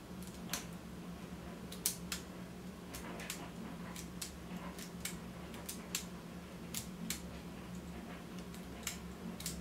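LEGO Technic shifter mechanism from the 42083 Bugatti Chiron being worked by hand, its plastic parts clicking sharply and irregularly, about fifteen clicks. A steady low hum runs underneath.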